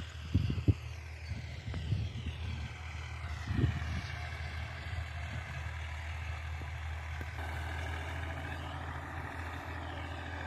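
A tractor's engine running steadily at a distance while it tills the field, heard as a low, even hum. A few soft thumps on the microphone come in the first four seconds.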